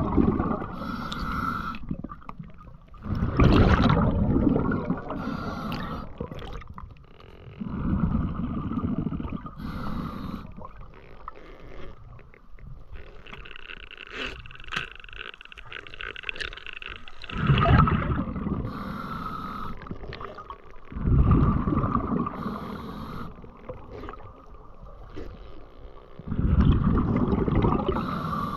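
Scuba regulator breathing underwater: about six loud bursts of exhaled bubbles several seconds apart, with quieter hissing inhalations through the regulator between them.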